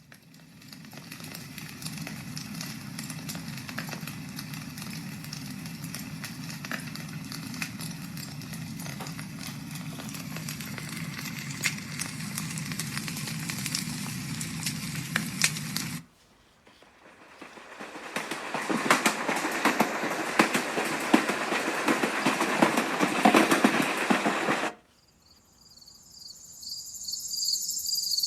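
Letsfit TP1 sleep sound machine switching through its built-in sound tracks. First comes a steady low rumble with scattered clicks, like a train ride. After a brief cut comes a louder crackling hiss. After another cut a night track of chirping crickets and frogs fades in near the end.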